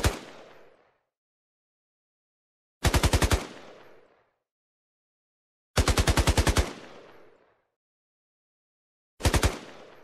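Automatic assault rifle firing short bursts at about ten shots a second. The end of one burst comes at the start, then three more bursts follow about three seconds apart, the third the longest and the last the shortest. Each burst ends in an echoing tail that fades within about a second.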